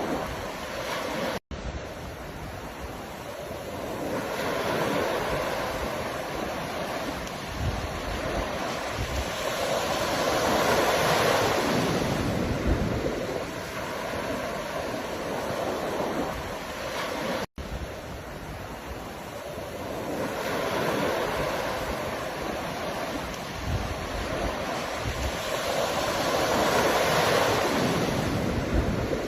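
Ocean waves breaking and washing up the shore in slow surges, each building to a peak and falling back. The sound cuts out completely for an instant twice.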